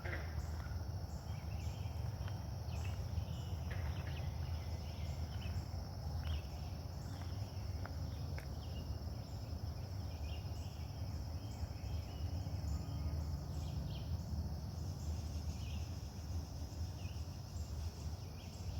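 Steady outdoor insect chorus: a continuous high-pitched trill with evenly repeating chirps above it, a few faint short calls scattered through, over a steady low rumble.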